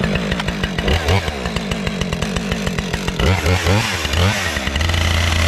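Husqvarna 550 XP two-stroke chainsaw running loud at high revs, its pitch rising and falling from about three seconds in.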